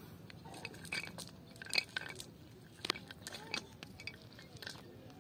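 Sinker weights along the edge of a cast net clinking against each other and the brick bank as the net is handled and picked through for fish: several sharp clinks, roughly a second apart.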